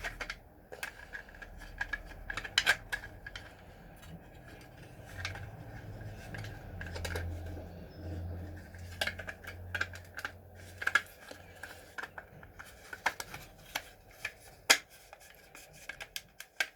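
Hard 3D-printed plastic parts being handled and fitted together: scattered clicks and knocks with light rubbing, one sharper knock near the end.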